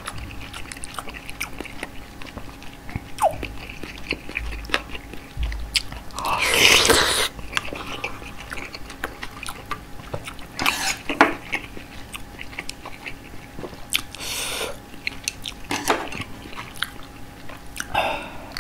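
Close-miked eating of napa-cabbage kimchi and rice soup: wet chewing and crunching with many small mouth clicks and smacks, broken by a few louder bursts about a second long, the biggest about a third of the way in.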